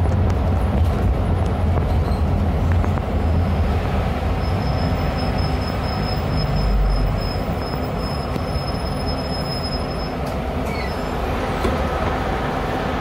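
Neobus Mega BRT bus heard from inside while driving: a steady low engine drone and road noise. A thin, high, steady squeal joins from about four seconds in and stops about ten seconds in.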